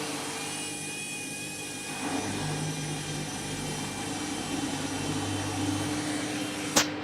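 Candy washing machine on its final spin, the drum motor running with a steady whine and hum. Two sharp clicks come near the end.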